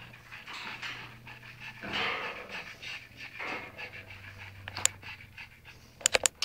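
Pekingese dog panting with its tongue out, in a few rough breaths. A sharp click comes late on, and a quick run of sharp clicks, the loudest sounds, comes at the very end.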